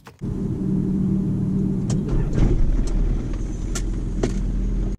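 Van engine running with a loud steady low rumble, a few short clicks over it.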